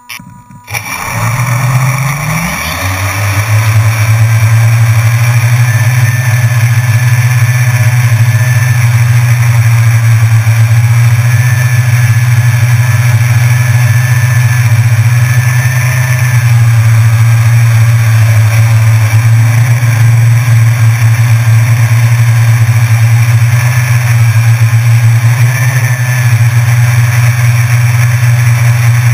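Small multirotor drone's electric motors and propellers spinning up, rising in pitch during the first few seconds as it lifts off the grass, then a loud steady propeller buzz as it flies, heard close up from the camera on board.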